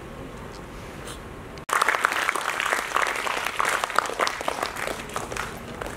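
Audience applauding: the clapping starts abruptly about two seconds in and thins out near the end.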